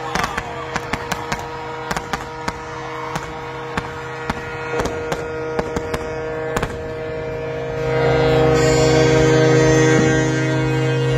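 Fireworks going off in a rapid string of sharp bangs and crackles, over a steady, unbroken horn tone that grows louder about eight seconds in.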